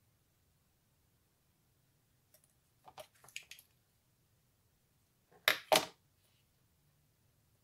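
Light handling noise on a glass craft mat: a few soft rustles and clicks around three seconds in, then two sharp knocks close together about five and a half seconds in as a hot glue gun is set down on the glass.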